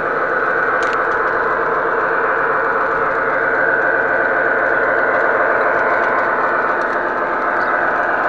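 MTH O-gauge model train running on three-rail O31 track, heard from a camera riding aboard: a steady, loud rumble and hum of wheels and motor on the rails, with one sharp click about a second in.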